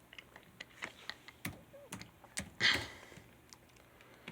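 Irregular clicks and taps of typing on a computer keyboard, with one louder, brief rustle a little past the middle.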